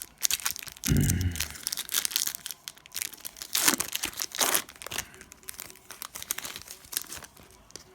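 Foil trading-card pack being torn open and crinkled, with a dull low thump about a second in.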